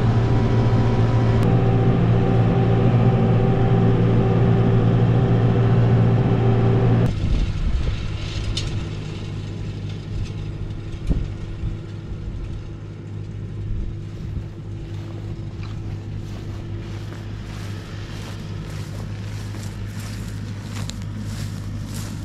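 Farm tractor engine running steadily under load as it pulls a wheel hay rake, heard close from the tractor seat. About seven seconds in it cuts off suddenly to a much fainter, steady distant hum, with faint repeated ticks near the end.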